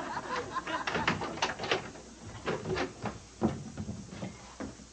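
Irregular knocks and clicks of household handling, a dozen or so sharp ones spread over a few seconds.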